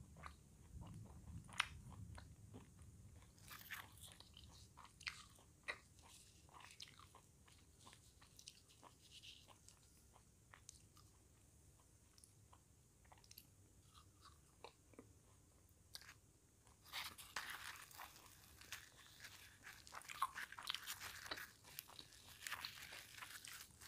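Faint chewing and biting of crisp deep-fried puri, with scattered small crunches. In the last several seconds a denser crackling as a puri is torn apart by hand.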